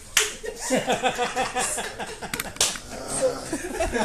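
Several people laughing, with a sharp smack about a quarter second in and a few more quick smacks around halfway.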